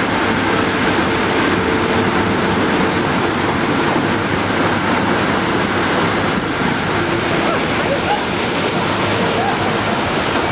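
Steady, even rushing of water churned up by a riverboat under way.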